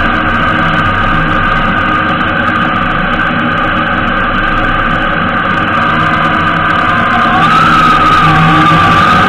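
Honda GL1800 Gold Wing's flat-six engine and road noise while riding at town speed, picked up by a camera mounted on the bike. It is steady, then grows louder about seven seconds in.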